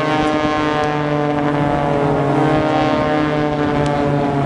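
Steady engine drone: one low pitched hum with many even overtones, holding nearly the same pitch throughout.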